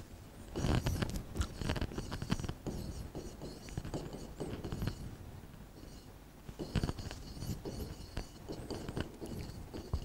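Stylus tapping and scraping on the glass of an interactive display panel while a heading is written, a string of irregular small clicks and scratches that eases off a little midway.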